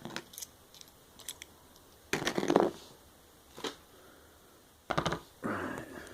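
Clicks and rattles of an opened padlock and small tools being handled: scattered clicks, a short clattering spell about two seconds in, and sharp clicks followed by a brief scrape near the end.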